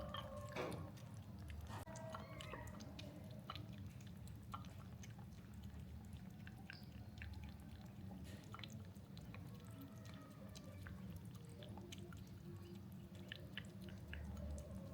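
A cat eating, with faint, irregular chewing clicks over a low steady hum.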